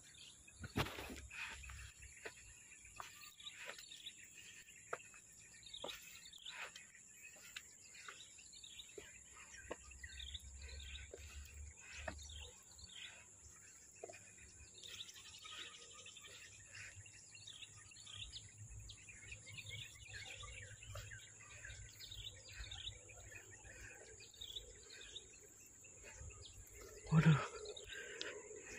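Birds chirping and calling here and there over a steady high-pitched insect drone. A short, louder sound breaks in once near the end.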